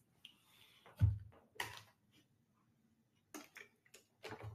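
A few scattered soft clicks and one dull thump about a second in, in a small quiet room.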